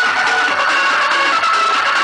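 Loud electronic dance music blasted from a car's competition sound system, steady and dense, with a harsh midrange-heavy sound and little deep bass.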